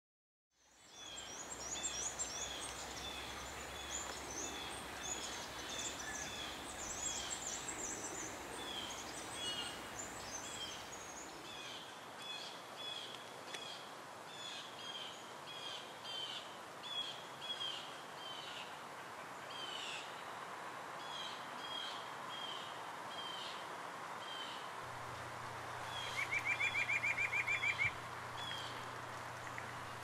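Small songbirds chirping and calling, with many short high chirps over a steady background hiss, and a fast trill of about two seconds near the end.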